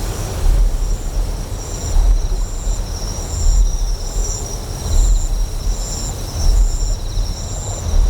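Deep, low generator hum that pulses, swelling about every one and a half seconds, under insects chirping: a steady high trill with short chirps repeating about once a second.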